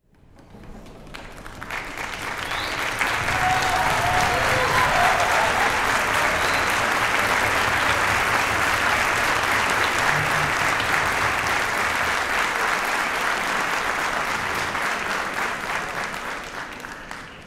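Audience applauding, building over the first few seconds, holding steady, then dying away near the end.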